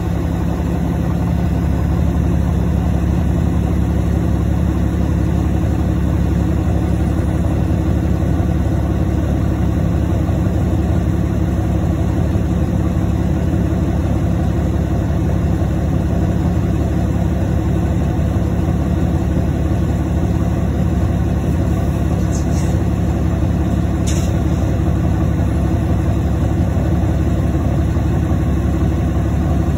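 Cummins ISL inline-six turbodiesel of a 2005 New Flyer D35LF transit bus idling steadily, heard from inside the bus, its engine note holding the same pitch throughout.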